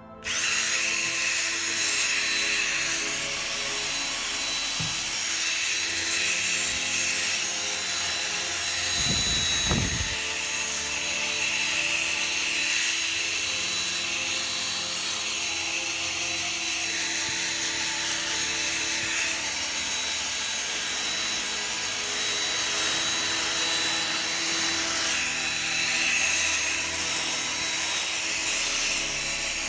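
Power drill running a foam polishing ball inside a chrome exhaust tip: a steady motor whine with the ball rubbing against the metal. It starts abruptly, with a brief low thud about ten seconds in.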